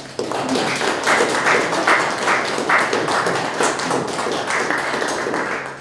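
Audience applauding: many overlapping hand claps that start suddenly and begin to die away near the end.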